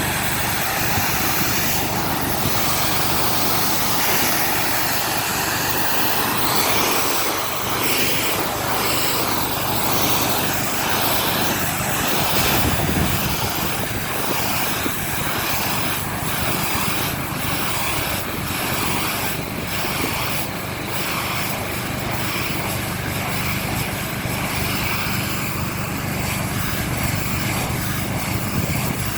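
Pressure washer running steadily: a constant engine hum under the hiss of the high-pressure water spray, which flickers as the spray shifts.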